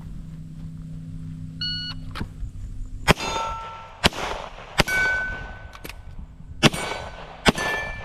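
A short beep, then five gunshots over about five seconds at steel targets, the steel plates ringing after the hits.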